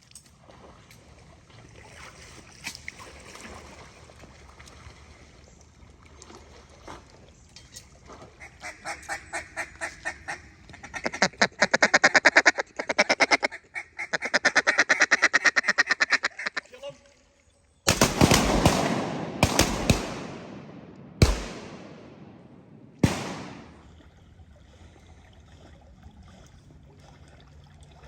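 Duck calls blown in fast, rhythmic runs of loud quacks, then four shotgun shots spaced a second or two apart, each echoing away.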